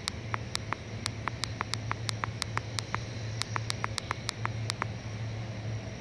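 Rapid sharp, high ticking calls from a small unseen animal, about four or five a second, stopping about five seconds in, over a steady low hum.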